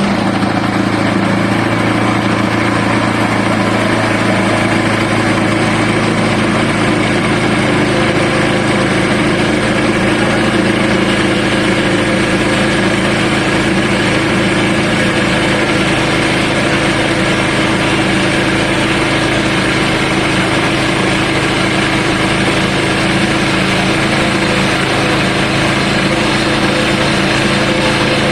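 Portable sawmill's engine running steadily while milling a southern rata log, an even engine tone with no change in pitch.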